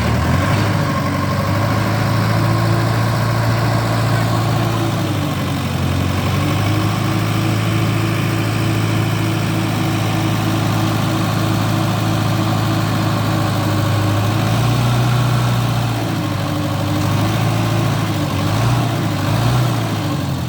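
An engine idling steadily, its hum shifting slightly in pitch a few times.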